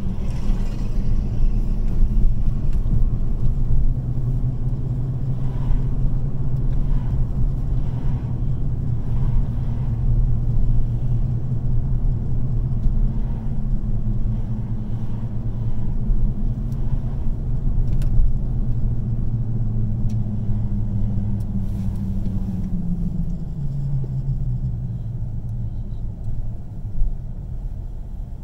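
Car driving on city streets, heard from inside the cabin: a steady low engine hum over road rumble. The engine note falls about three-quarters of the way through as the car slows in traffic.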